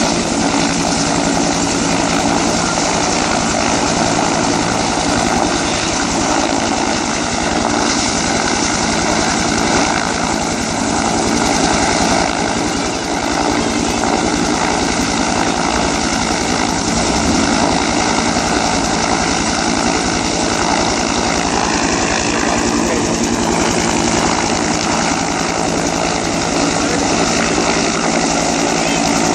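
Rescue helicopter with a two-bladed main rotor hovering and setting down nearby. Its turbine and rotor run loud and steady throughout.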